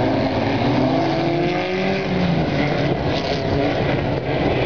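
Racing car engines running hard and accelerating, their pitch rising over the first couple of seconds.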